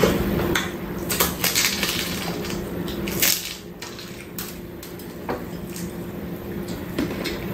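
Eating sounds: crisp crunching bites into a toasted chicken burrito and chewing, a scatter of short crackles over a steady low hum.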